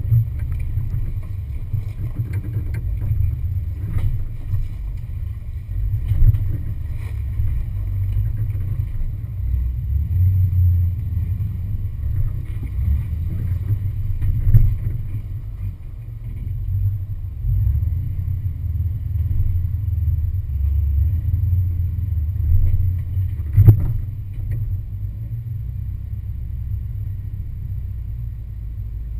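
Ford Explorer's engine running at low revs as it crawls up over rocks, rising and falling with the throttle. There are occasional knocks and one louder bang about three-quarters of the way through.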